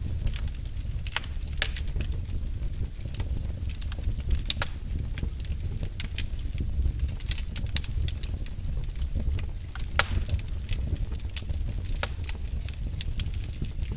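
Wood fire burning in a fireplace: a steady low rumble of the flames with irregular sharp crackles and pops, the loudest about ten seconds in.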